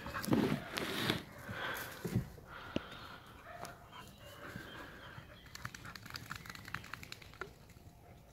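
Two Jagdterriers play-fighting, giving dog noises and scuffling, loudest in the first second or so and again about two seconds in, then quieter.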